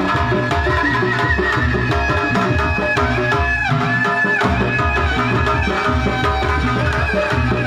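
Live pencak silat accompaniment music played through a sound system: hand drums (kendang) keep a steady rhythm under a held, sliding melody from a reed wind instrument, typical of the tarompet. The drums drop out briefly a little past the middle.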